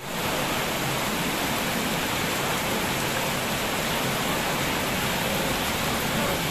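Heavy rain pouring onto a wet, puddled street: a steady hiss of drops splashing on standing water.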